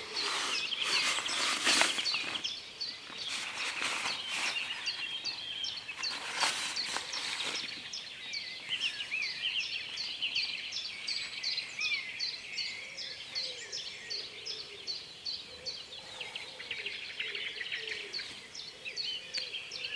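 Dawn chorus of many songbirds singing together. From about eight seconds in, one bird repeats a quick series of short high notes, about three a second, over the other songs. Several brief rushes of noise come in the first few seconds.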